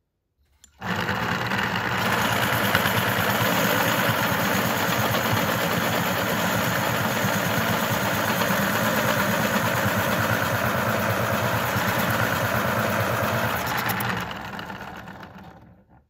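Electric pencil sharpener running and grinding a wooden pencil: it starts suddenly about a second in, runs steadily, then fades away over the last two seconds.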